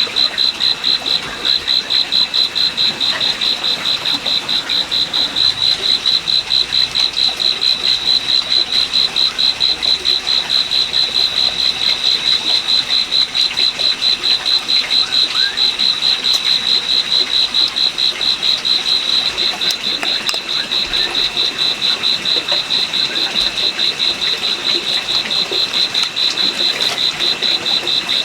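Steady high-pitched chirping call from a small animal, pulsing evenly several times a second, with a fainter lower tone beneath it.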